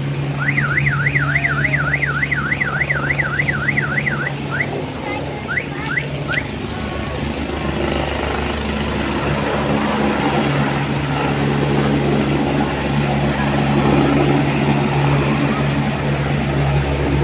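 Helicopter running on the ground with a steady low drone and a loud rushing noise. For the first few seconds a high electronic alarm warbles up and down, about three sweeps a second, then gives a few short rising chirps.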